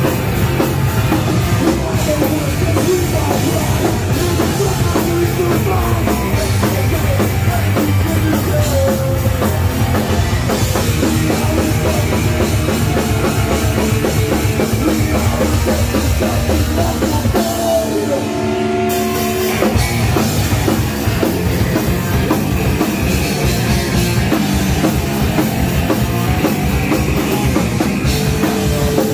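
Live punk rock band playing a song: drum kit, electric guitars and bass with a lead vocal, loud and continuous. About 18 seconds in the drums drop out for roughly two seconds, leaving a few held notes, before the full band comes back in.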